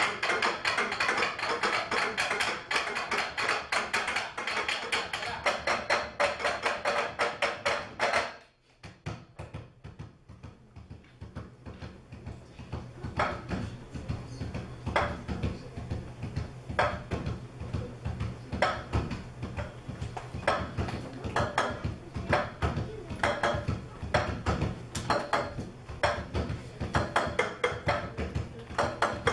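Cups played as percussion instruments: a dense, fast run of tapping and knocking that breaks off about eight seconds in, then returns as sparser rhythmic strikes over a low steady hum.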